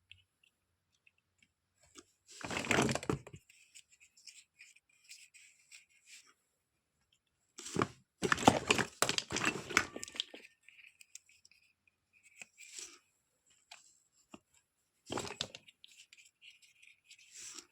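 Toy packaging being torn and handled during unboxing, in three noisy bursts about two and a half, eight and fifteen seconds in, with faint small clicks and rustles between.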